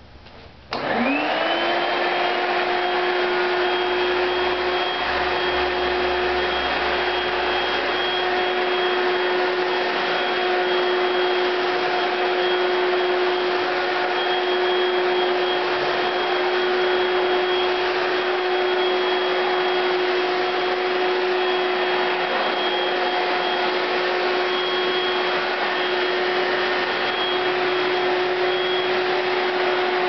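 Vintage Hoover Celebrity 'floater' canister vacuum cleaner, which rides on a cushion of its own exhaust air, switched on under a second in: its motor winds up quickly with a rising whine, then runs steadily with a strong rush of air.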